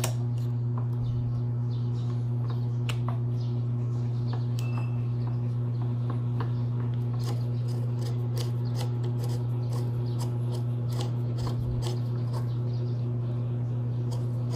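Scattered light metallic clicks and scrapes of hand tools and metal parts as a scooter's front shock is worked on and the tool is turned, over a steady low hum.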